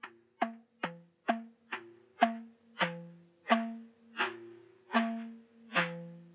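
Music played on an African slit log drum: single wooden strikes, each ringing on a few pitched notes, about two a second at first and gradually slowing to about one a second.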